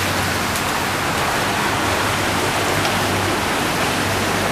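Steady rushing hiss of water on a flooded street.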